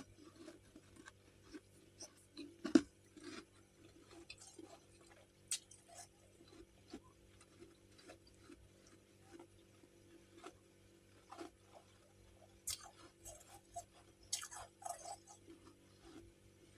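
Freezer frost chunks being chewed and crunched close to the microphone: scattered small crunches, one loud bite about three seconds in, and a cluster of louder crunches near the end.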